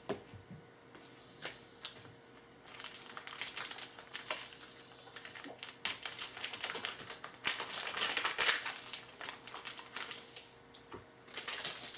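Trading-card pack wrapper crinkling and tearing while the cards inside are handled: a dense run of crackling and clicking that builds after a quiet start and is loudest about eight seconds in.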